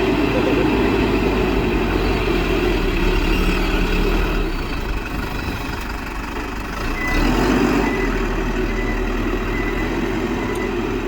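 Heavy diesel engine of earthmoving machinery running steadily, easing off about halfway through and picking up again about seven seconds in.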